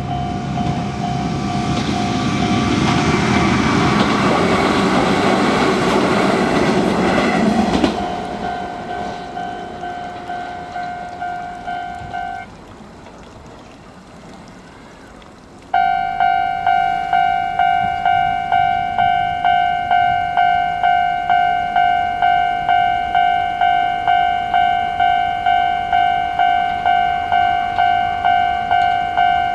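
Japanese level-crossing warning bell ringing its fast, repeating electronic ding while an Izuhakone Railway electric train runs over the crossing, the train's rumble loudest for the first several seconds and then fading. The bell stops about twelve seconds in. A few seconds later it starts again suddenly and louder, the sign that another train is approaching.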